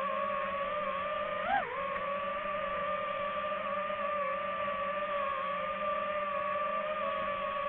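DJI FPV quadcopter's motors and propellers whining at a steady pitch, with one brief surge up and back down in pitch about a second and a half in as the throttle is blipped.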